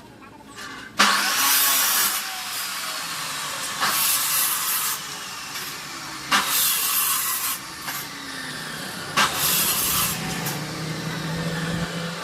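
Angle grinder cutting steel in four short passes of about a second each, a harsh hiss each time the disc bites, with the motor running on between passes.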